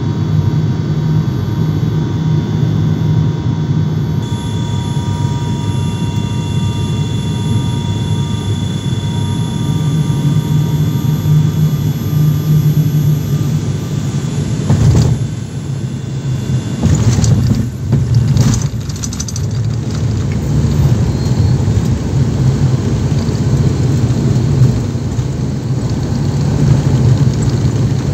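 Turboprop airliner's engines and propellers heard from inside the cabin during landing: a steady low propeller drone with a thin engine whine over it, through the final approach and the roll down the runway. A few brief, rougher jolts of noise come about halfway through, as the aircraft is on the runway.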